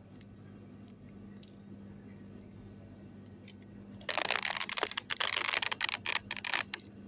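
Handling noise from the camera being moved: a harsh rustling and scraping that starts about four seconds in and lasts nearly three seconds, with brief breaks. Before it there are a few light clicks over a faint steady hum.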